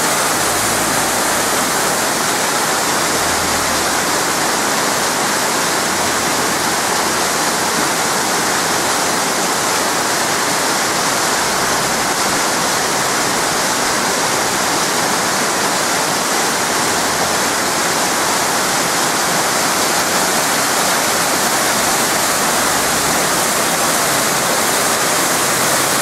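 Mountain waterfall pouring down a rocky gully: a loud, steady rush of falling water that does not let up.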